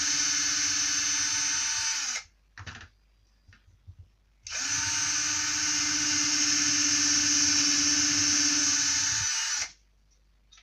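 Electric drill-driver with a 3 mm metal bit drilling through a thin plastic headlamp strap mount, giving a steady whine. The first run stops about two seconds in, followed by a few light clicks. A second run of about five seconds stops near the end.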